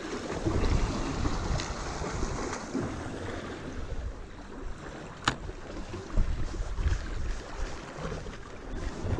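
Wind buffeting the microphone over the wash of surf on the shore, with a single sharp click about five seconds in.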